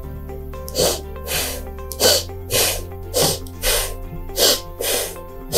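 A person blowing out sharply through the nose about eight times in a row, roughly two a second, over background music: a breathing exercise of forced nasal exhales to clear a blocked nose.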